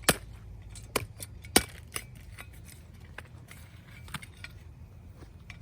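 Irregular sharp clicks and knocks, four louder ones in the first two seconds and fainter ones after, over a steady low rumble.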